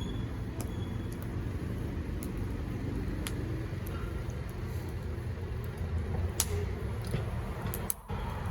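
Wood fire crackling, with a few sharp pops scattered through it over a steady low rumble.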